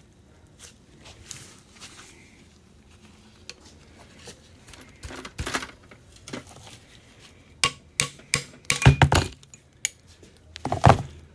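Metal parts of a disassembled T-90 transmission clinking and clattering against each other as they are handled, in scattered knocks with a louder run of clatter about nine seconds in.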